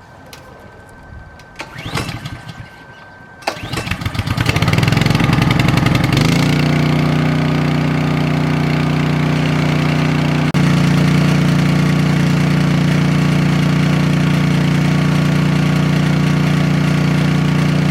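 Black Max 3000-watt portable generator's Honda-built gas engine starting: it catches about three and a half seconds in, runs unevenly for a few seconds as it picks up speed, then settles into a steady run.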